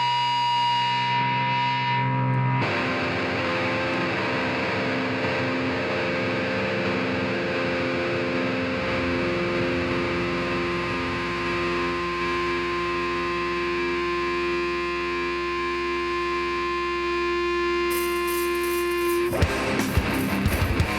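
Live heavy metal song intro: distorted electric guitar holding long droning notes through effects, changing pitch a few times. About nineteen seconds in, the drums and the full band crash in.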